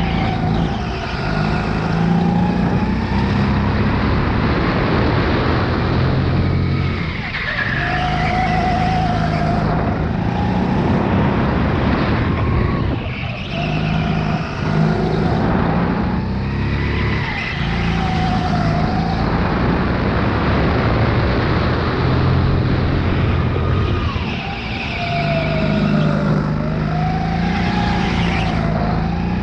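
Sodi RX8 rental go-kart's single-cylinder four-stroke engine revving hard on the straights and dropping off when the throttle is lifted for corners, five or so times. Tyres squeal through the turns.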